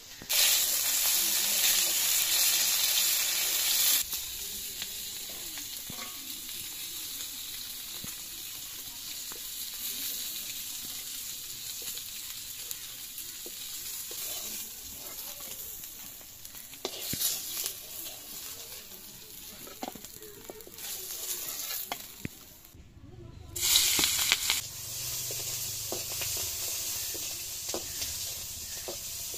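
Pieces of fish sizzling as they fry in hot oil in an iron karahi, turned with a metal spatula that clicks and scrapes against the pan. The sizzle is loudest for the first four seconds, settles to a steady lower hiss, and flares up again briefly about 24 seconds in.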